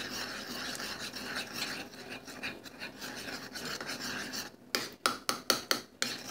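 A spoon stirring pancake batter in a bowl: a continuous scraping swish as the flour is worked in. About four and a half seconds in, it turns to quick strokes knocking against the bowl, about five a second.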